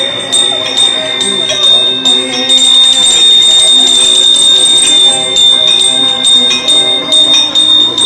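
Temple bell rung rapidly and without pause during the lamp-waving offering, about four strokes a second, over a steady high ringing tone. The strokes run together most densely a little past the middle.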